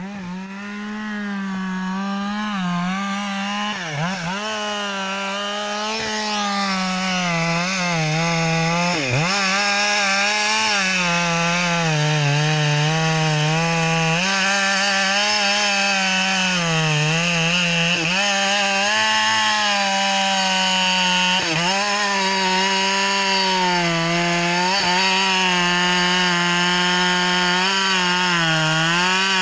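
Husqvarna 572XP two-stroke chainsaw running at full revs and cutting through the trunk of an uprooted tree. The engine note holds steady, dipping briefly several times as the chain bites into the wood.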